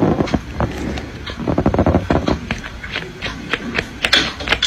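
A cat on a curved cardboard scratcher making bursts of rapid scratching and knocking, about three bursts of sharp clicky strikes.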